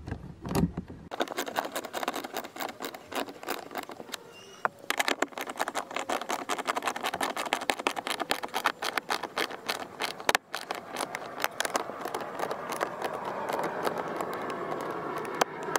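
Small hand ratchet with a socket clicking rapidly as it drives in a speaker's mounting screws, with a brief pause about ten seconds in.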